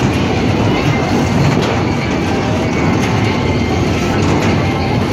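Spinning amusement ride in motion: a loud, steady rumble and clatter from the cars rolling and turning on the platform.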